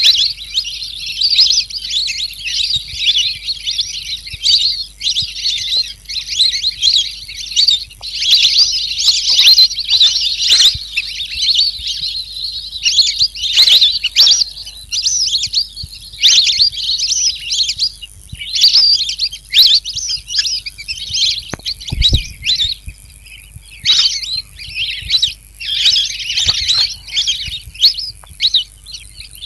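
Pikikat alis kuning songbird singing a fast, high-pitched chattering song of rapid chirps, in phrases separated by brief pauses, over a faint steady hiss.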